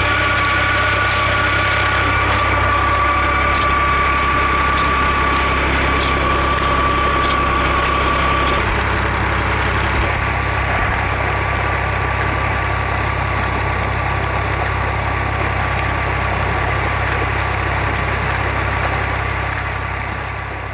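Ghazi tractor's diesel engine running steadily under load, driving a tubewell pump through its shaft, with a steady high whine in the first half. About ten seconds in, water gushing from the pump outlet into a concrete tank joins the engine.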